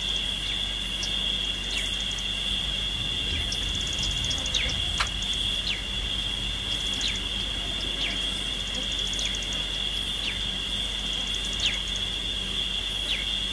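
A steady, high-pitched insect drone with short, falling bird whistles about once a second over it.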